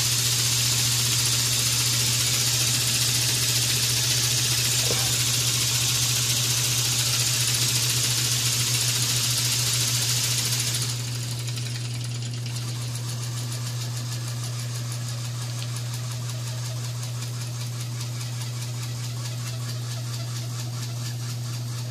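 Small model steam engine running fast on steam from a mini boiler, a rapid even chuffing with a loud hiss of steam. About eleven seconds in the hiss drops away and the running goes quieter, as the steam valve on the boiler is turned down.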